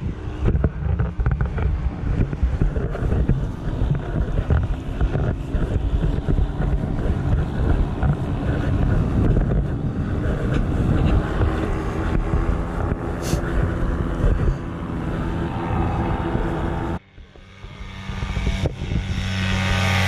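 Powered paraglider's engine and propeller running steadily, with wind buffeting the microphone. The sound drops away sharply about seventeen seconds in, and a paramotor engine picks up again a second or so later.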